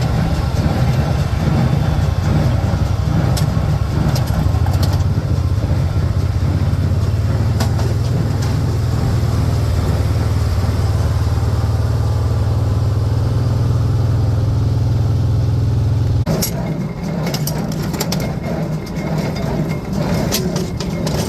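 A farm engine running steadily with a deep drone that cuts off abruptly about sixteen seconds in. Scattered clicks and knocks follow.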